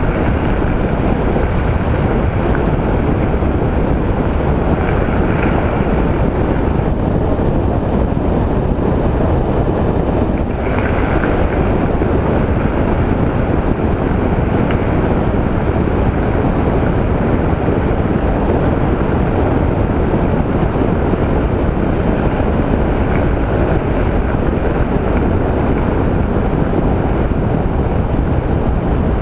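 Steady wind rush and road noise on a helmet-mounted microphone with a makeshift wind cover, riding a Honda ST1300 touring motorcycle at a constant cruising speed.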